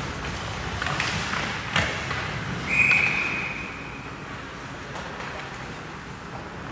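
Two sharp knocks of stick and puck on the ice or boards, then a single steady referee's whistle blast lasting just over a second, stopping play, over the hollow background noise of the ice rink.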